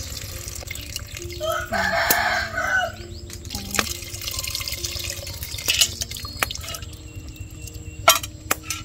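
Liquid poured from a metal bowl into a pot of bamboo shoots, splashing and trickling. A rooster crows loudly about a second in, for about a second and a half. A couple of sharp knocks come near the end.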